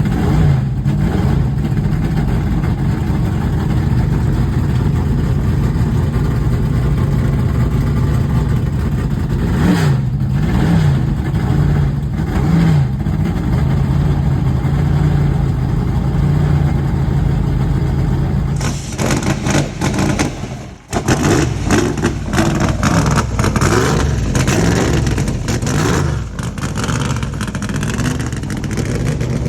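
1976 IMSA GTO race Corvette's V8 running loud at idle, blipped briefly a few times about ten to thirteen seconds in. From about eighteen seconds on it sounds harsher and brighter, dips sharply for a moment a little later, then is revved in quick blips.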